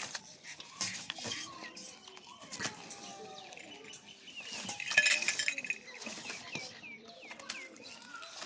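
Goat chewing and crunching corn, a string of sharp irregular clicks, with a louder rustling burst about five seconds in. A small bird chirps quickly and repeatedly in the second half.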